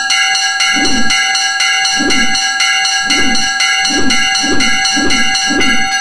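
Railroad crossing warning bell ringing steadily, about two strikes a second.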